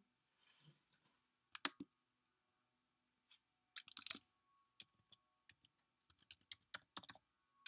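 A run of sharp clicks and taps from a hand handling the recording device right at the microphone. There is one pair of clicks early, a cluster about four seconds in, then a quicker scatter of taps over the next few seconds.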